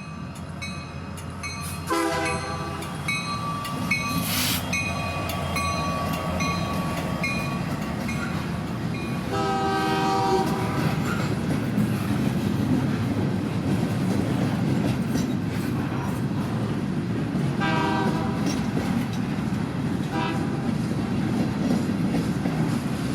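Narrow-gauge steam train running along the track, with the locomotive's steam whistle blowing three blasts: short, longer, short. A regular ringing, likely the locomotive bell, fades out over the first several seconds.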